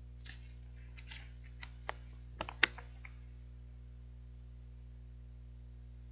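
Plastic ice-cream packaging crackling and clicking as it is handled, a quick string of short crackles in the first three seconds with one sharp click about two and a half seconds in. A low steady hum runs underneath.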